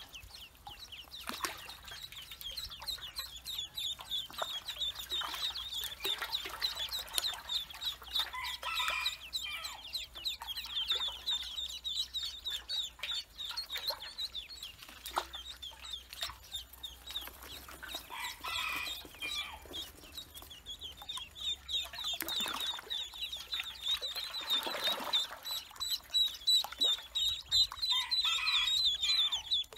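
A group of Pekin ducklings peeping rapidly and continuously while they paddle and splash in a metal basin of water. Lower calls come in short runs a few times, and the splashing grows heavier about three-quarters of the way through.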